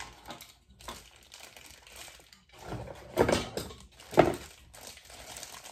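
Plastic wrapping crinkling as small wrapped power-plug adapters are handled. The sound comes in stretches, with a longer burst about three seconds in and a sharp, louder one about a second later.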